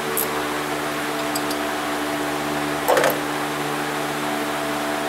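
Wrench work on the A/C compressor mounting bolts: a few light metal clicks and one louder clank about three seconds in, over a steady machine hum.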